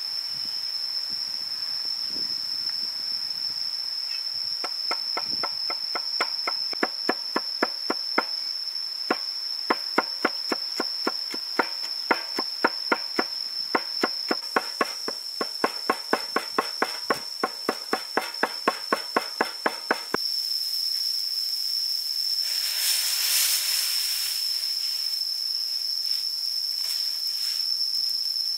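A steel cleaver chops garlic on a wooden board in fast, even knocks, about three a second, for some fifteen seconds. Under the chopping a steady high insect drone runs without a break. After the chopping stops, a pot of chicken broth boils with a hissing bubble.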